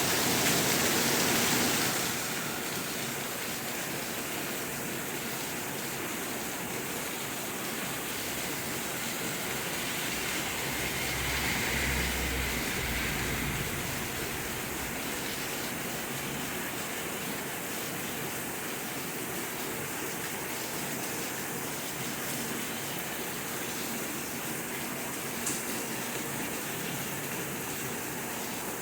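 Steady rain falling as an even hiss, a little louder for the first couple of seconds. A low rumble swells and fades about twelve seconds in, and there is a single sharp tick near the end.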